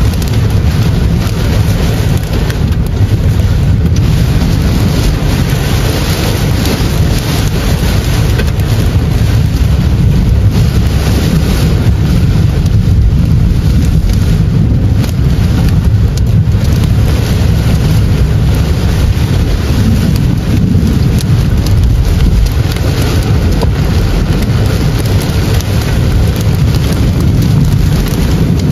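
Heavy rain beating on a car's roof and windshield, heard from inside the cabin. It is a loud, steady rush with a deep rumble underneath.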